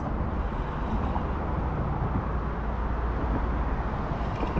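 A steady low rumbling noise with no distinct events.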